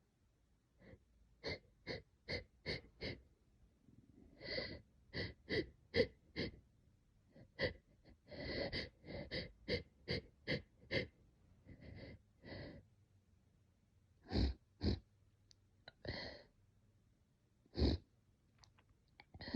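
A person's short, catching, hitching breaths in quick runs of several, about three a second, then a few spaced, stronger bursts near the end. These are the spasmodic breaths of an allergic reaction to a cat, coming on with sneezing.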